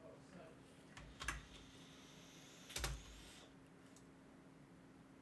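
Two faint computer keyboard keystrokes, about a second and a half apart, made while a line of text is being edited.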